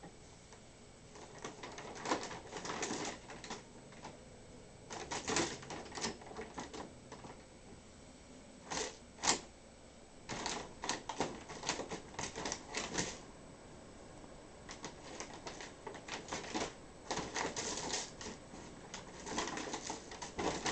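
A bag rustling and crinkling in irregular bursts as a cat plays in it, with short pauses between flurries.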